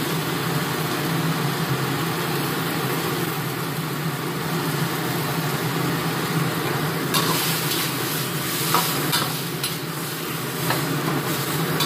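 Chopped tomatoes sizzling in a hot wok while a metal spatula stirs and scrapes them, with a few sharp clicks of the spatula against the wok from about seven seconds in. A steady hum from the kitchen exhaust fan runs underneath.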